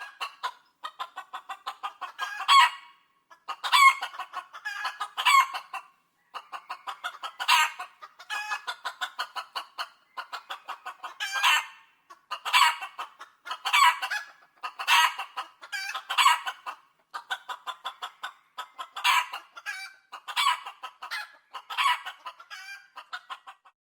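Chickens clucking: rapid runs of short clucks broken by louder calls about every one to two seconds.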